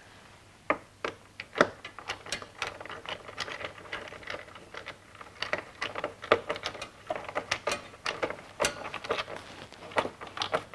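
Irregular small clicks and taps of hands working on a stainless steel motorcycle radiator guard: pressing a rubber button into place, then setting a screwdriver to one of its screws near the end.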